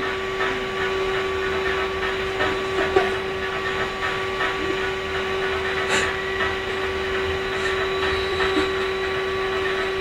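A steady mechanical hum with a held tone, and a few faint taps and a sharp click about six seconds in.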